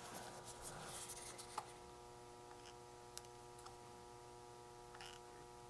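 Near silence: room tone with a faint steady hum and a few small, faint clicks.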